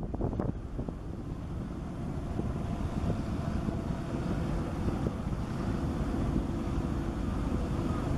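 Wind buffeting the microphone over small waves washing and breaking at the water's edge, a dense low rumble. A faint steady hum sits underneath from about three seconds in.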